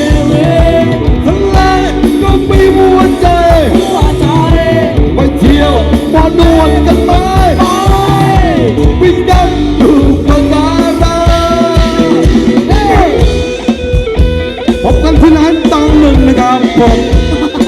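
Thai ramwong dance-band music playing loudly, with a steady low beat under a bending melody line.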